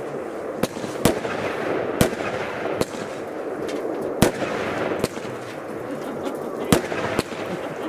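Fireworks going off: about eight sharp bangs at irregular intervals, with a steady crackling noise between them.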